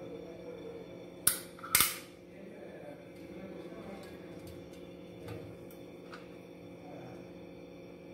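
Two sharp clicks about half a second apart, a little over a second in, then a few faint ticks: the stainless-steel chakli press and steel plate knocking together as spiral chakli are piped out. A steady hum runs underneath.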